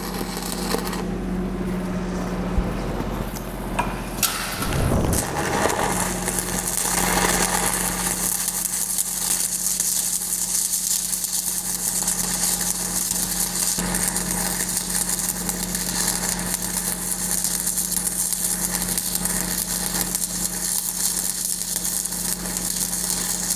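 Welding arc crackling and sizzling steadily as a downhill weld bead is run on a pipe joint, over a steady low machine hum.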